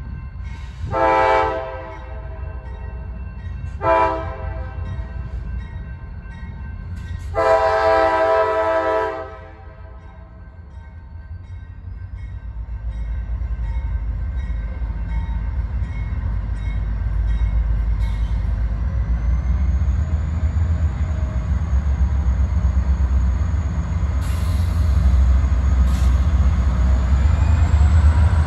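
Diesel locomotive horn on an approaching freight train sounding three blasts: one about a second in, a very short one at four seconds, and a longer one at about eight seconds. The low rumble of the locomotives then grows steadily louder as the train draws near, and a faint high whine joins in during the second half.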